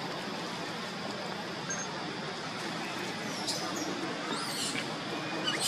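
Steady outdoor background hiss, with a few short, high-pitched animal squeaks that sweep up and down in pitch in the second half, the sharpest near the end.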